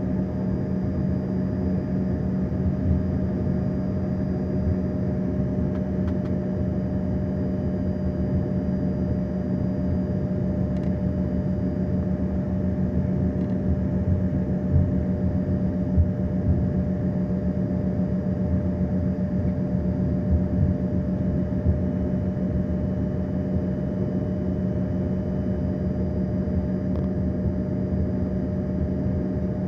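Steady drone of an airliner in flight, heard from inside the passenger cabin: the engines hum at a constant pitch over the hiss of the airflow. A couple of faint knocks come midway.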